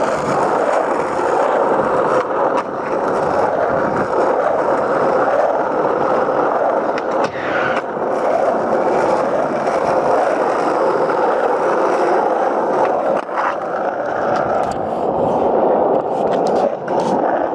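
Skateboard wheels rolling on asphalt, a continuous gritty rumble, broken a few times by short sharp clacks.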